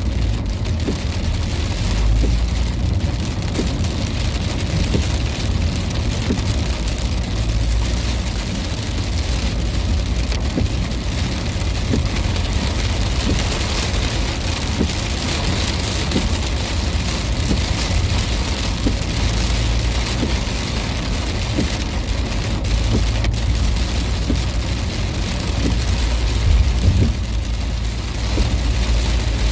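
Heavy rain falling on a car's windscreen and body, heard from inside the cabin, over a steady low rumble of the car and its tyres on the wet road.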